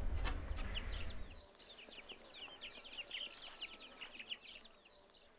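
A low hum for about the first second and a half, then faint, rapid peeping of chicks in a poultry run: many short, high, falling cheeps one after another, tailing off near the end.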